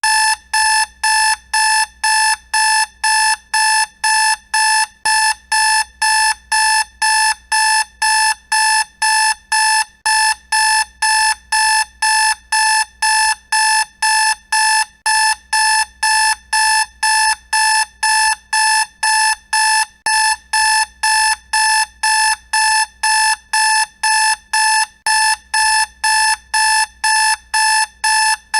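Electronic alarm clock beeping: one loud, high-pitched tone pulsing on and off about twice a second, without change.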